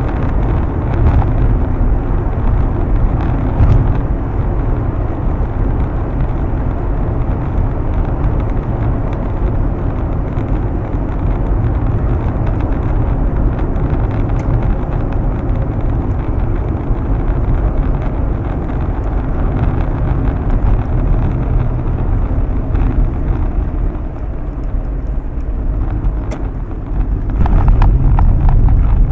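A car driving at highway speed, heard from inside the cabin: a steady rumble of road, tyre and engine noise. It dips briefly and then grows louder near the end.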